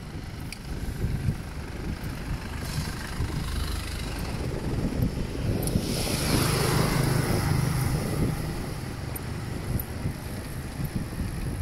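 Road traffic: a steady engine rumble and tyre noise, with a vehicle passing close about six seconds in, its engine hum swelling and then easing off.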